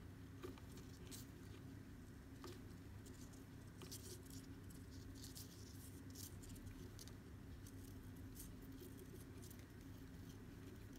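Faint scratching and light ticking of macrame cord being handled and drawn tight into knots, over a steady low hum.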